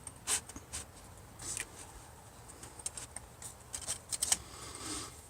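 A few scattered light clicks and soft rustles of a manual typewriter and paper being handled, irregular and not a run of typing.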